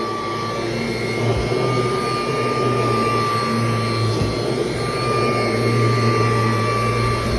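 Kirby Heritage II upright vacuum running steadily with its brush roll engaged, a constant low hum under a steady high whine. The owner calls the running noise horrible and never heard before, and suspects worn bearings.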